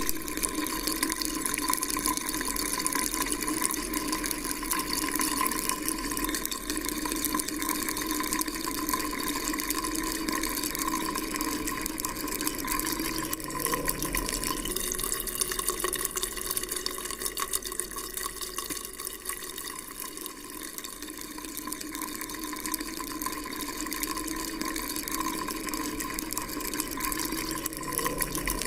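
Water running steadily, an unbroken splashing flow with no pauses.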